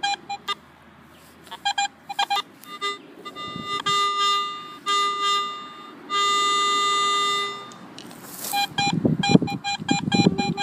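Metal detector sounding its target tone over a buried 20 cent coin as the coil sweeps across it: a few short, choppy beeps, then several held high tones, the longest about a second and a half, near the middle.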